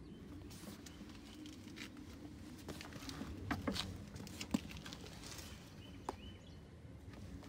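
Hand handling the calf-leather dressage saddle, rubbing and patting it, giving scattered soft taps and rustles with one sharper click a little past halfway.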